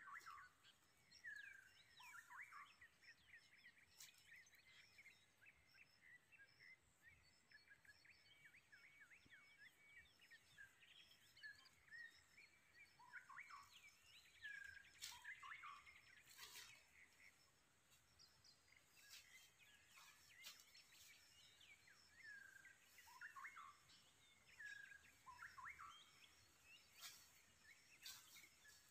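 Faint bird calls: short falling chirps in scattered clusters, over a steady high-pitched pulsing background. A few sharp clicks are heard now and then.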